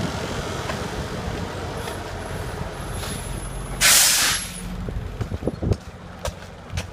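A large engine running steadily, with a short loud hiss about four seconds in, followed by a few scattered knocks.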